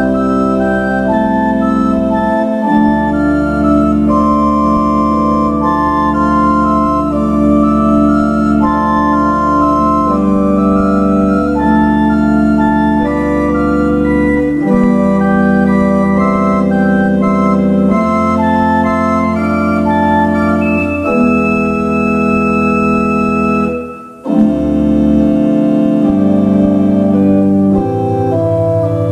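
Old English pipe organ, with parts possibly from as early as 1780, playing slow held chords over a bass line. The notes change every second or two, with one brief break near the end before the playing resumes.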